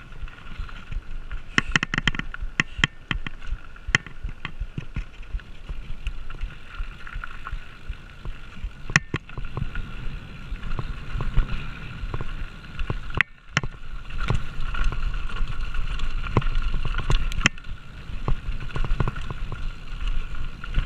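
2020 Polygon Siskiu D7 full-suspension mountain bike riding fast down a rocky dirt trail: tyres rumbling over dirt and stones, with frequent sharp clicks and rattles from the bike as it hits bumps, over a steady buzzing whir.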